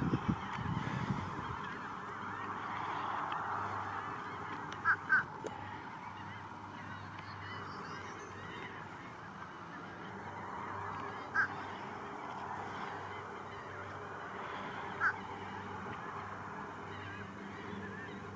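A few short bird calls, two close together and then two single ones, over a steady background rush.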